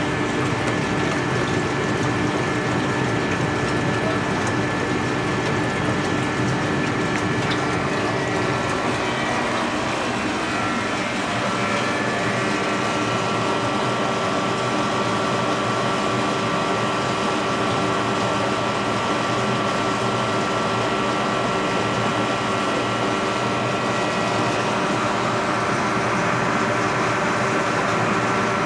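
Steady hum and water rush of aquarium pumps and filtration, with several steady tones that shift about eleven seconds in.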